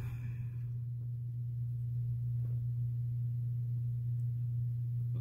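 A steady low hum holding one pitch, with nothing else clearly heard.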